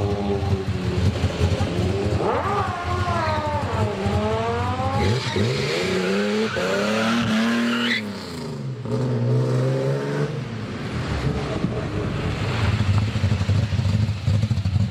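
Chevrolet Opala inline-six engine being revved several times, its pitch climbing and falling. The last and highest rev climbs steeply and cuts off suddenly, then the engine settles into a steady idle.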